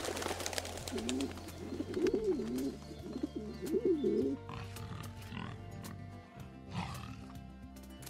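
Feral pigeons cooing in wavering up-and-down calls for the first half, with wing claps as the flock flutters up, over background music.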